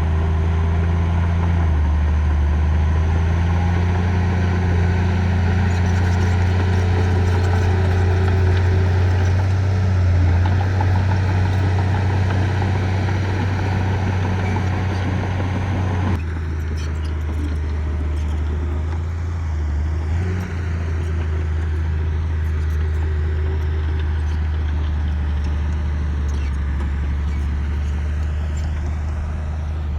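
Diesel engine of heavy earthmoving machinery running steadily with a deep, constant hum. About halfway through, the sound changes abruptly and the higher clatter and noise drop away while the engine hum continues.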